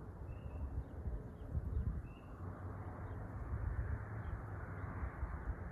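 Frogs calling at a pond: a steady chorus that swells after a couple of seconds, with two short higher calls about half a second and two seconds in, over a low rumble.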